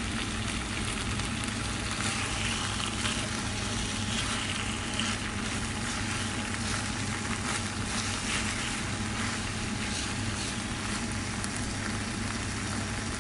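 Food frying in hot oil: a steady, dense sizzle with fine crackles throughout.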